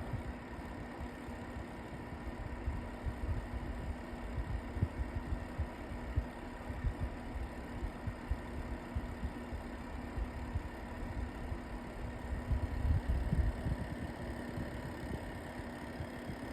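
LG AeroTower air purifier fan running with a steady hum and an irregular low throbbing rumble that surges and eases. It is the abnormal vibration noise the owner hears at fan speeds 5–7, which LG's engineer says is normal above speed 5.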